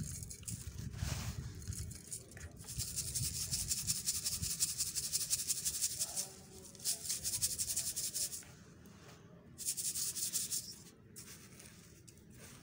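Dry sand-and-cement mix sifted through a round metal sieve and crumbled by hand: a dense gritty hiss of fine grains pouring through the mesh, once for a few seconds and again briefly near the end, with softer rubbing and crumbling of the lumps between.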